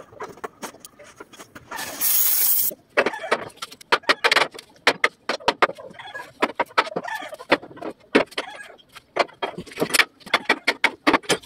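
Hammer blows on a steel truck chassis rail: many sharp, irregular metal strikes in quick succession. About two seconds in there is a short burst of hissing noise lasting about a second.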